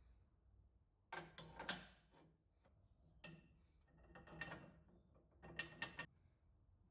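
Faint clicking and rattling of metal parts being handled or fitted, in four short bursts with quiet gaps between them.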